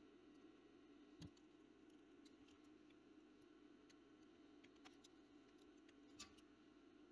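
Near silence, with a few faint, sharp clicks of a small screwdriver or pick levering at a desoldered chip on a circuit board, over a faint steady hum.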